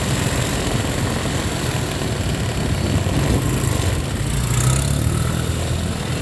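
Steady low rumble of motor vehicle engines in city street traffic.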